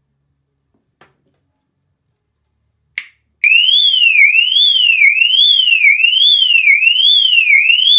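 Lynteck burglar alarm bell box sounding on power-up: a click about three seconds in, then a loud siren starts, its pitch sweeping up and down a little more than once a second.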